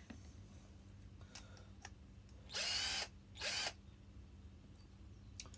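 Parkside PBSA 12 C2 12-volt cordless drill driver, with its chuck taken off, run twice in short bursts about halfway through. Each burst spins up and winds down, the second shorter. A few light clicks of handling come before and after.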